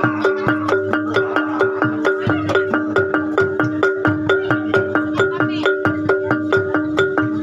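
Gamelan-style music for a kuda kepang trance dance: tuned metal mallet instruments play a fast repeating melodic pattern, about four strokes a second, over a steady low drum beat.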